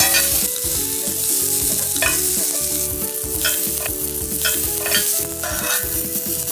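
Asparagus spears sizzling in a hot cast-iron grill pan while metal tongs turn and push them about. The tongs click against the pan every second or so over the steady sizzle.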